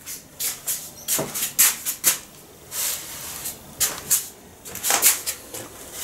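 A string of short, irregular rustles and clicks, handling noise from a handheld camera moving close around a refrigerator, with a sharper knock about a second in and another near the end.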